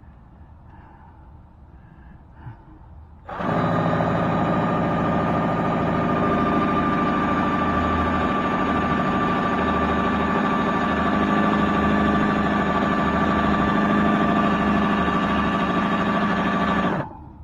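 Electric drill running steadily at full speed for about fourteen seconds, starting a few seconds in and stopping abruptly near the end, as it bores into a hardened molding screw that it is barely cutting.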